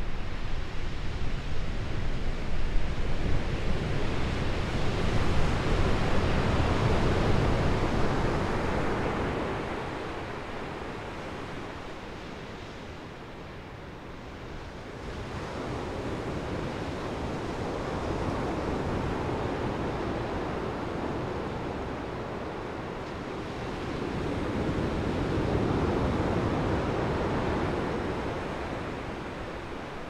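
Ocean surf breaking and washing up a beach: a steady rushing noise that swells and ebbs with the waves, with a quieter lull near the middle.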